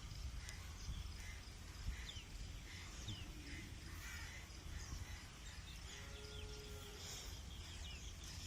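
Faint outdoor ambience: birds chirping over and over, with short falling chirps, over a steady low rumble. A faint pitched call sounds briefly about six seconds in.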